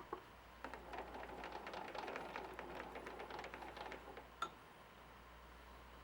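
Faint rustling and small clicks of hand work on small metal parts at a lathe, with a sharp click at the start and another about four and a half seconds in, over a low steady hum.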